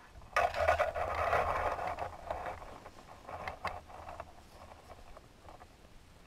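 Pea gravel being scraped and scattered aside: a sudden loud scrape of stones about a third of a second in that lasts about two seconds, then a few lighter clicks and rattles of pebbles that fade out.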